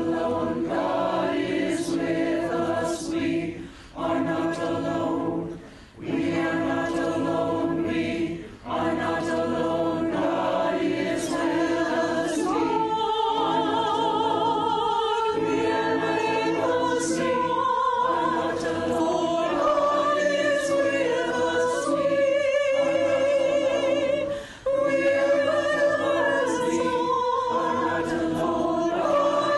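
A choir singing in phrases with short breaks between them. From about halfway through, a voice with strong vibrato stands out above the rest.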